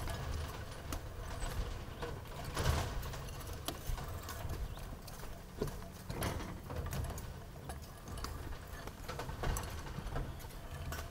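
Rebar being hand-tied with pliers and tie wire: scattered irregular metallic clicks and knocks as the wire is twisted at the bar crossings and the steel bars clink under the workers' boots, over a low rumble.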